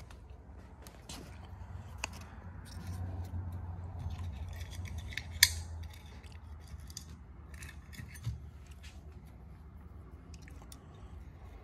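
Light clicks and rubbing of a plastic shift sensor being handled and pressed onto a transmission's shift shaft, with one sharp click about five and a half seconds in.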